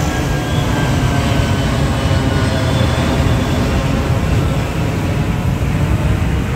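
Twin-engine jet airliner climbing out overhead just after takeoff, its engines giving a loud, steady rumble with a faint high tone that drops slightly in pitch as it passes.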